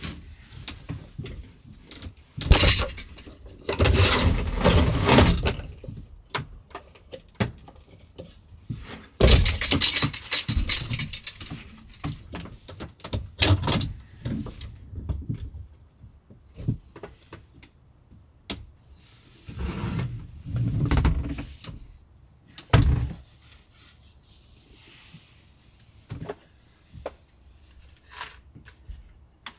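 Knocks, taps and scraping of wood and fittings as a wooden-framed panel is handled and set into a camper's side-window frame. The sounds come in several short bursts with quiet gaps between, in a small wooden room.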